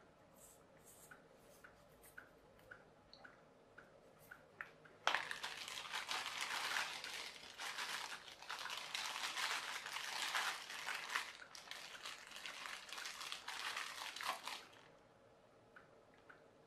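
Small plastic bag crinkling loudly as hands rummage in it and pull out a small electric motor, for about ten seconds from about five seconds in. Under it, a clock ticks about twice a second.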